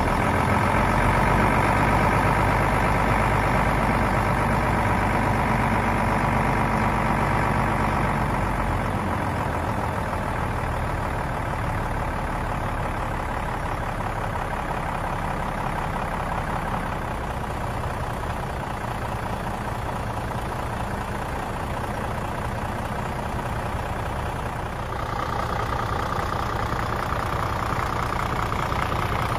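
Diesel engine of a Scania 94D/260 street sweeper truck idling steadily. The hum is louder with a deeper rumble for the first nine seconds or so, then settles. A steady higher whine comes in near the end.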